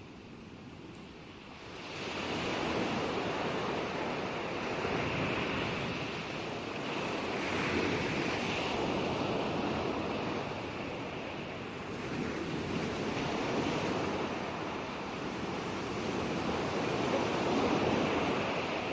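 Ocean waves breaking and washing on the shore in a steady wash of surf. The surf is quiet for the first two seconds, then swells up and ebbs in slow surges, the loudest near the end.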